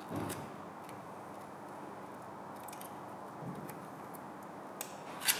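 Red reflective vinyl caliper wrap film being pressed and trimmed with a blade: faint small ticks and crinkles over a steady background hum, with a dull knock at the start and two sharp clicks near the end, the second the loudest.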